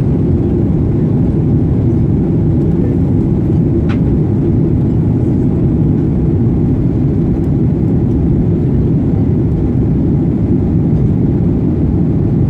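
Jet airliner cabin noise in cruise flight: a loud, steady, deep rush of engines and airflow heard from inside the cabin by the window.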